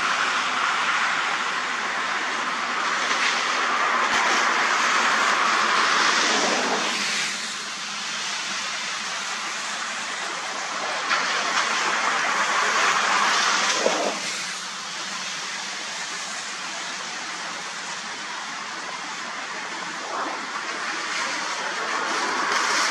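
Swollen, fast-flowing creek: a steady rushing of water. The rush drops in level about seven seconds in, swells again, and drops again near fourteen seconds.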